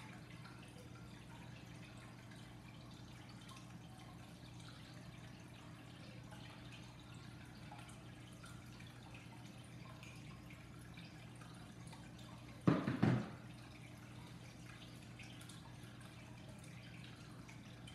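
Quiet room tone with a steady low hum and faint scattered ticks. About two-thirds of the way through, a short loud sound of a few quick pulses lasts about half a second.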